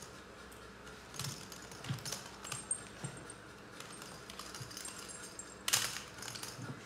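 Faint scattered taps and small knocks of objects being handled on a wooden bench, with one louder, brief knock and rustle a little under six seconds in.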